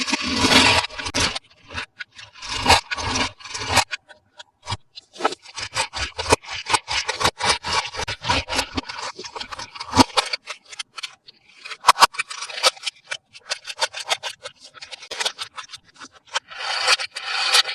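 Toy packaging handled up close: bursts of rubbing and scraping, with many small clicks and taps.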